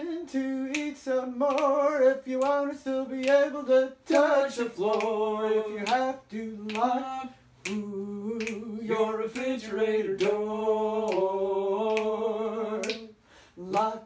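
Singing kept in time by finger snaps, a steady beat of about two to three snaps a second, with no instrument playing.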